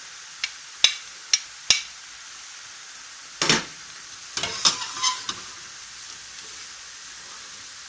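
Grated carrot and onion sizzling in oil in a non-stick frying pan, with a steady hiss. A spatula knocks sharply four times in the first two seconds and scrapes twice around the middle as the vegetables are stirred.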